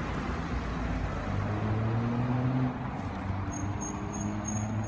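Road traffic noise: a steady rush with the low hum of a vehicle engine, and a run of short high chirps near the end.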